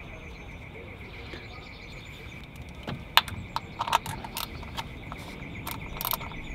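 Irregular sharp metal clicks and clinks of a socket and ratchet being handled and fitted onto a small bolt, starting about halfway through, the loudest a few seconds in.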